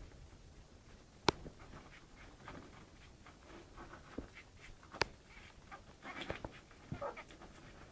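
Puppies shuffling about: faint scratching and pattering, with two sharp clicks and a few short, faint squeaks near the end.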